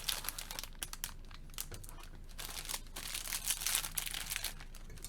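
Plastic wrapper of a small pack of butter cookies crinkling with irregular crackles as it is handled and pulled at to open it.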